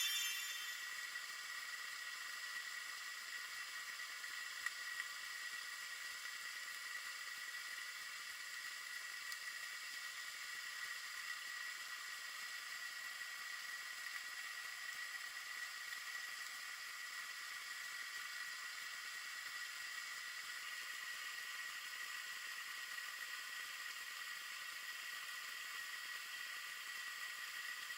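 Steady hiss with a faint steady high whine: the recording noise of a Spydro underwater fishing camera. Two faint ticks come about five seconds in.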